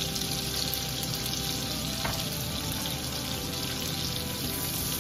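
Chopped onions sizzling steadily in hot butter and oil in a frying pan.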